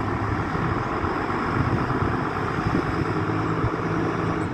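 Fire engine's diesel engine running steadily as the truck pulls out of its station bay.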